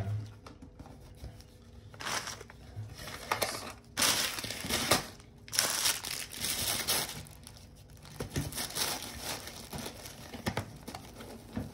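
Packaging crinkling and rustling in irregular bursts, the sound of a product being unwrapped by hand, loudest in the first half.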